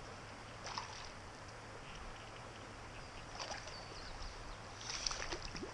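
A hooked rock bass splashing at the surface of the creek three times, the loudest splash about five seconds in, over the steady hiss of flowing water.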